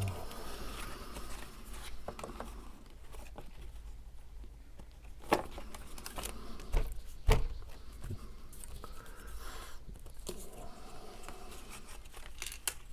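Cardstock craft pieces being handled and pressed into place: soft rustling and rubbing with a few sharp taps, the loudest about seven seconds in.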